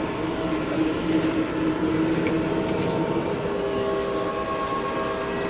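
Bitcoin mining machines' cooling fans running in the shed: a steady whir with several whining tones, which shift slightly about four seconds in.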